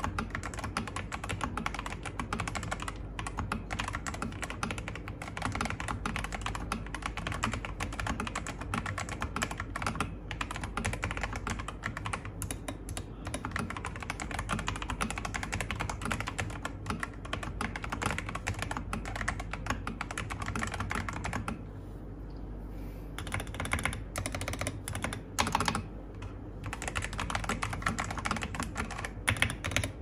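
Typing on a Lychee G66 Pro mechanical keyboard with stock Holy Cattle tactile switches, XDA keycaps and a PE foam and tempest tape mod: a fast, continuous clatter of keystrokes that thins out after about 21 seconds into sparser, scattered presses.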